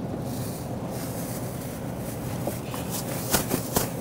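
Thin plastic produce bag crinkling as a bunch of celery is put into it, with a few sharp clicks near the end, over a steady low hum of store background noise.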